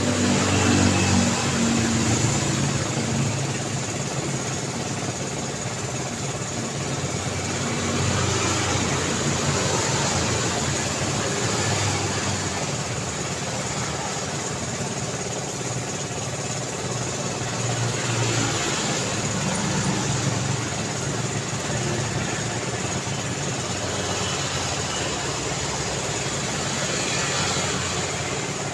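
Road traffic: a steady stream of motor vehicles passing, their engines and tyres making a continuous rumble that swells as vehicles go by, loudest about a second in and again around a third and two thirds of the way through.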